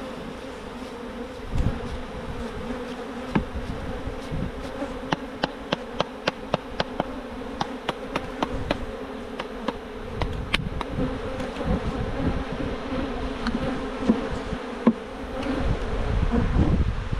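Honeybees buzzing steadily in large numbers around an opened hive. Through the middle comes a quick run of sharp clicks, several a second.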